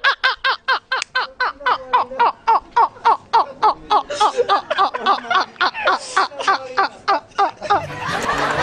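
Hearty, uncontrollable laughter: a long unbroken run of rapid, even 'ha-ha' bursts, about four to five a second, trailing off near the end.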